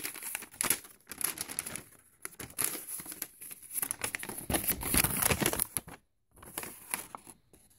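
Paper rustling and crinkling as a folded invoice is pulled out of its envelope and opened out by hand, in quick uneven strokes that are loudest past the middle and break off briefly near the end.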